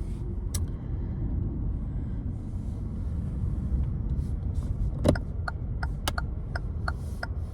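Steady low road rumble inside a moving car's cabin; about four seconds in, the turn-signal indicator starts clicking, roughly two to three ticks a second.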